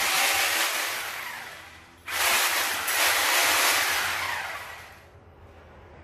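Two blast-like sound effects, each a sudden loud burst of noise that fades away over about two seconds. The second starts about two seconds in.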